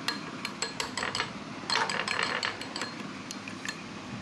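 Metal spoon stirring a thick paste of ground rice and almonds in a glass bowl, tapping and clinking against the glass in quick, irregular clicks, with a longer scraping stretch about two seconds in.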